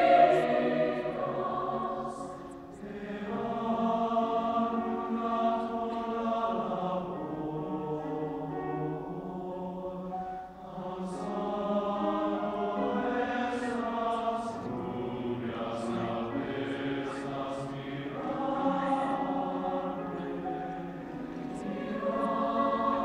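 Large mixed choir singing a Spanish-language choral piece in sustained, many-voiced chords, breaking briefly between phrases about three and ten seconds in.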